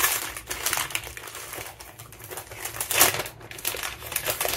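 Small paper gift bag crinkling and rustling in the hands as it is opened, in irregular crackles with a louder burst about three seconds in.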